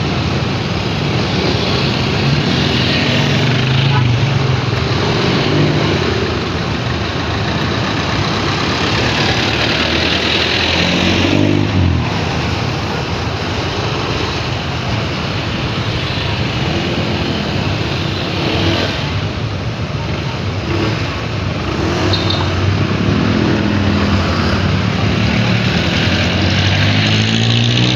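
Road traffic: vehicle engines running under a steady rush of road and wind noise, the engine pitch rising and falling now and then.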